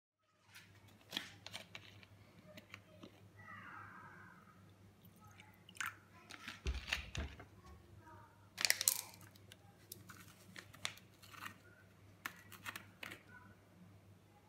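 Kitchen handling sounds: scattered clicks and knocks of bottles, a bowl and utensils being picked up and set down on a countertop. A dull thud comes about seven seconds in and a louder cluster of clicks about nine seconds in, over a steady low hum.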